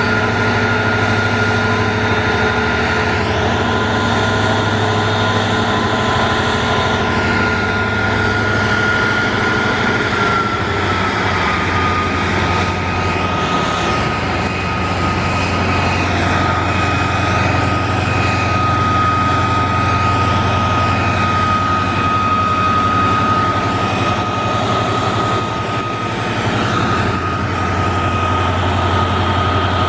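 Twin EMD WDG4 (GT46MAC) diesel-electric locomotives with turbocharged two-stroke V16 engines working hard at high notch to haul a loaded freight train up a gradient: a steady heavy engine rumble under a high turbocharger whine, the whine dropping slightly in pitch about ten seconds in.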